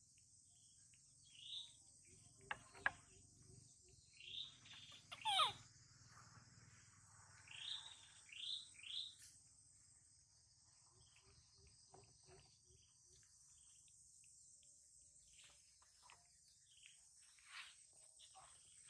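Faint steady chorus of crickets and other insects, with a handful of short sweeping chirps, mostly in the first half.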